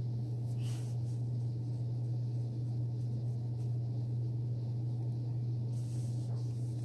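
Steady low hum with a faint, brief rustle about a second in.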